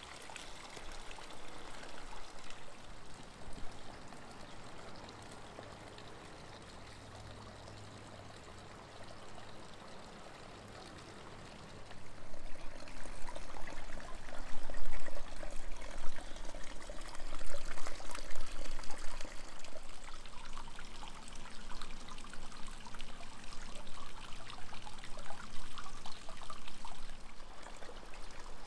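Water running and splashing steadily, louder and busier about twelve seconds in.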